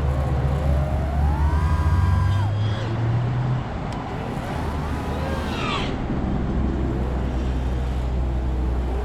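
FPV quadcopter's motors and props whining, the pitch rising and falling several times with the throttle, over a low wind rumble on the onboard microphone.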